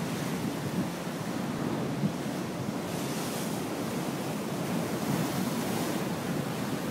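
Heavy storm surf breaking on rocks and washing up against a concrete seawall, a steady rush of sea with a brighter hiss of foam about three and five seconds in.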